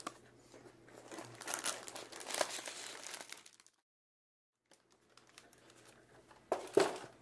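Plastic packaging crinkling and rustling as accessory bags and an anti-static bag are pulled out of a motherboard box, with cardboard box parts handled. The sound drops out completely for about a second midway, and a short, louder crinkle comes near the end.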